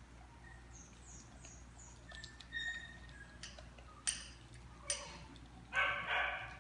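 Two dogs eating kibble from stainless-steel bowls on a tile floor: two sharp metallic clinks of a bowl about four and five seconds in. Faint falling bird chirps near the start, and a short pitched voice-like sound near the end that is the loudest thing.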